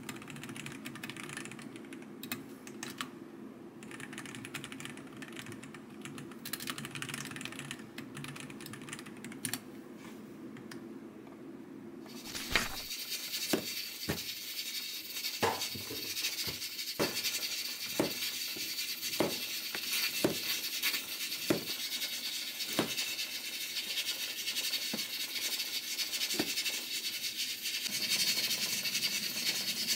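Typing on a computer keyboard, irregular key clicks over a low steady hum. About twelve seconds in the sound changes abruptly to a steady hiss with a sharp click roughly once a second.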